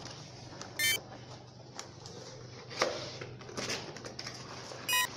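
Cardboard tripod box being handled and opened: scattered taps, clicks and rustles of packaging, with two short high squeaks, one about a second in and one near the end.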